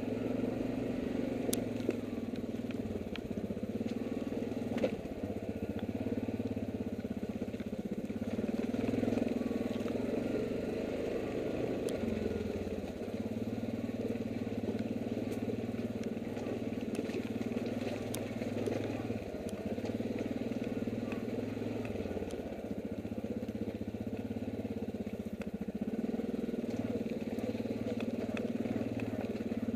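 ATV engine running steadily at low revs as the quad crawls down a rough, rocky trail, its pitch wavering slightly, with a few sharp clicks and knocks.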